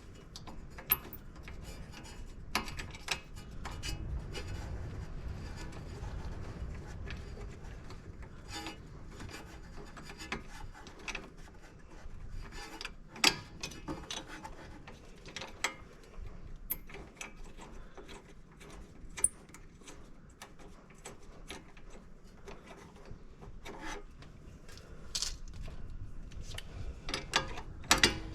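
Hand tools and metal brake parts being handled during rear brake pad work on a car: irregular sharp clicks and knocks over a low rubbing and scraping.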